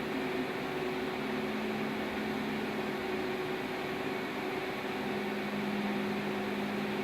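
Steady drone of steam boiler plant machinery: an even hiss with two steady humming tones, without change.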